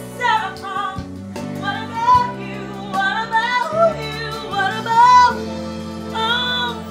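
Music: a woman singing a soulful song with wordless runs over steady instrumental chords.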